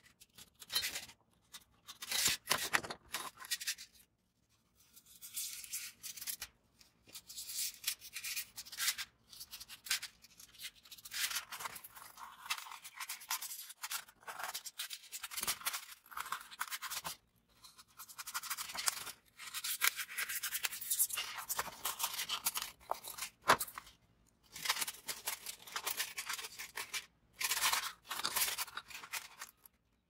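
A pen and a craft knife scraping and cutting through a sheet of polystyrene foam: repeated bursts of scratchy rasping separated by short pauses. One sharp click stands out about two thirds of the way through.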